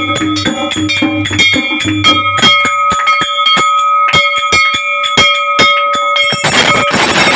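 A puja bell rung rapidly and unevenly, its ringing tone held between the strikes. A low hum underneath stops about two and a half seconds in, and a rushing noise joins near the end.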